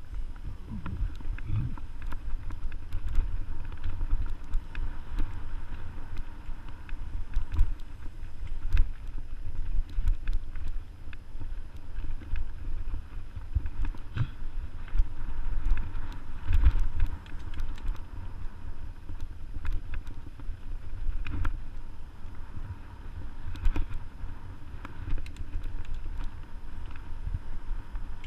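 Mountain bike ridden fast along a dirt trail, heard from a camera on the bike or rider: a fluctuating low rumble of wind on the microphone and tyres on the ground, with frequent short knocks and rattles from the bike going over bumps.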